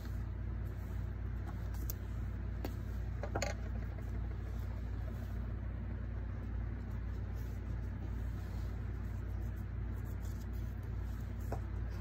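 Steady low background hum, with a few faint clicks and taps from handling paper strips and a glue stick.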